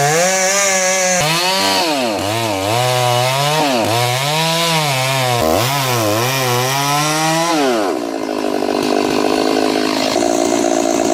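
Stihl MS 290 Farm Boss two-stroke chainsaw running loud while cutting into a large cottonwood trunk. Its engine speed rises and falls repeatedly as it loads and frees up in the cut, then about eight seconds in drops to a lower, steadier note.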